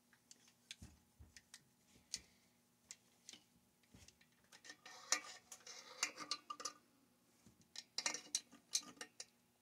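Light clicks and small rattles of a hand tool and parts being worked against a two-stroke chainsaw powerhead, scattered at first, then quick bursts of clicking about halfway through and again near the end.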